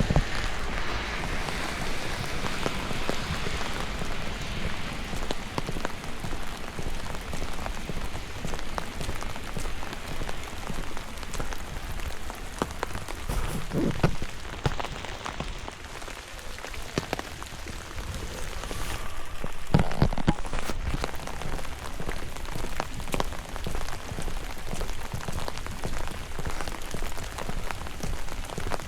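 Steady rain, with many separate drops ticking close by and a few louder knocks about 14 and 20 seconds in.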